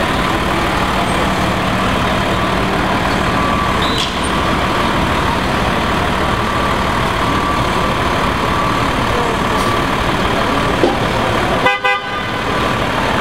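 Diesel engine of a Hino box truck running at low speed as it creeps through a course, in a large echoing hall, with a steady high tone running under it. The sound briefly drops out about twelve seconds in.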